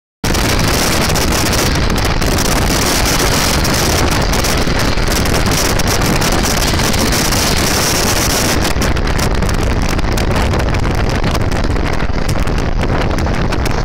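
Wind rushing over the microphone of a moving motorcycle, mixed with a steady high scraping hiss of metal dragged on the asphalt throwing sparks; the scraping stops about eight and a half seconds in, leaving the wind and road noise.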